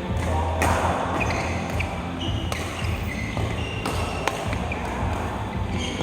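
Billiard balls and cue knocking during play: a few separate sharp clicks over steady room noise.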